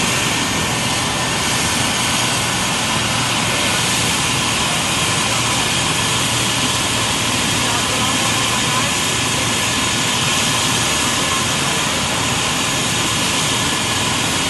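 Airbus EC135 air-ambulance helicopter running on the ground with its turbines at idle. It makes a steady high whine of several tones over a constant rushing noise.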